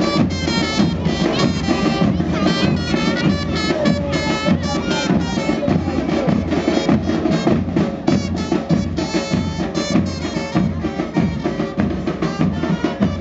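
A murga band playing: bombos con platillo (bass drums with a cymbal mounted on top) beat the dense, driving murga rhythm, with trumpets playing a melody over it.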